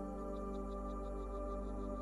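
Slow ambient new-age sleep music of sustained, steady droning tones, with a faint run of quick, high chirps, about five or six a second, over it.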